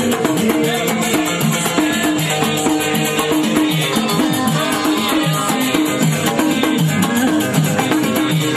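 Live Tashelhit Amazigh folk music: a fast, steady rhythm beaten on drums with sticks and on a frame drum, under a repeating melody.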